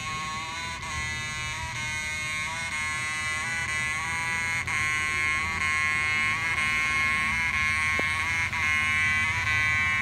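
Outdoor mechanical fire alarm horn (Siemens U-NH series horn/strobe) sounding a continuous harsh buzz, growing louder.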